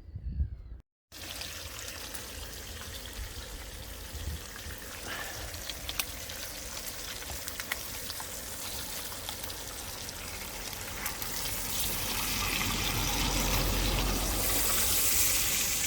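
Bacon sizzling in a pan, a steady hiss with scattered crackles that grows louder over the last few seconds as the fat heats.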